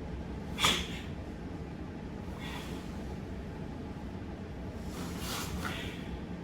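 A few short, sharp hissing sounds from karateka performing kata applications, the loudest about a second in and fainter ones near the middle and end, over a steady low hum.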